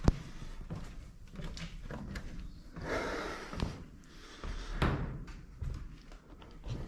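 Footsteps and scuffing on a hard floor, with irregular knocks and two longer scraping noises about three and five seconds in.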